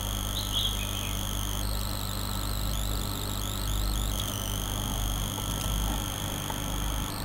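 Electrical noise on the recording: a steady low hum under a thin high-pitched whine that jumps and slides in pitch a few times, around two to four seconds in.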